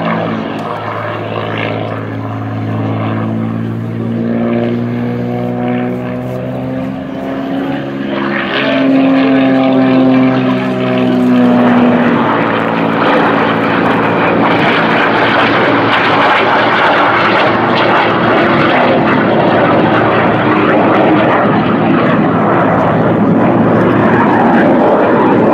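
Aerobatic propeller plane's piston engine running hard, its pitch sliding up and down through the manoeuvres. From about 12 s a louder, even rushing roar takes over as a jet passes overhead.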